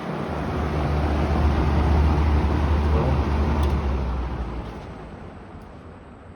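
Lakewood P-222 20-inch two-speed box fan running: a steady rush of air over a low motor hum. After a light click a little past halfway, the hum fades and the air noise drops away over a couple of seconds as the fan slows down to low speed.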